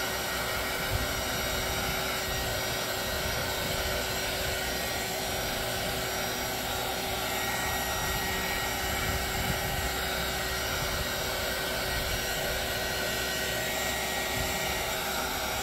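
Handheld heat gun running steadily, blowing hot air over a wet resin pour, with a faint steady hum under the rush of air.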